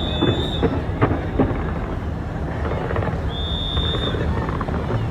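Fireworks show with a large crowd: a dense hubbub of many voices and shouts, with a few sharp firework bangs around the first second and a half. Two high, steady whistle tones sound, one at the start and one a little past three seconds.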